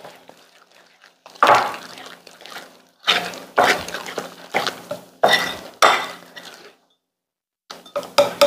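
Flour batter being mixed in a bowl: a utensil scrapes and clinks against the bowl in a series of separate strokes, some ringing briefly, with a pause before a last cluster near the end.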